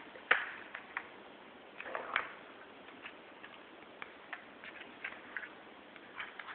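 Light clicks and taps at uneven intervals, from kittens moving about, the loudest about a third of a second in and just after two seconds.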